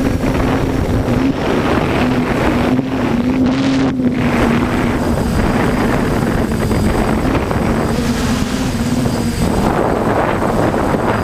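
Multirotor drone's propellers humming, the pitch wavering slightly as the motors work against gusts, with strong wind buffeting the microphone throughout. The hum fades about nine seconds in while the wind noise goes on.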